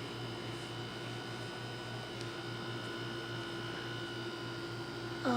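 Steady electrical hum with a few faint steady tones over quiet room noise. Right at the end, a short sound falls sharply in pitch.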